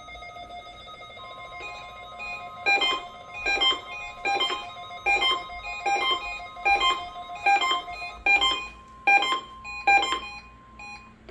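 NOAA Weather Radio receivers sounding for a test alert. Steady alert tones start at once, and the warning alarm tone near 1 kHz joins about a second in. From about three seconds in, a receiver's alarm beeps about ten times, a little under once a second, louder than the tones.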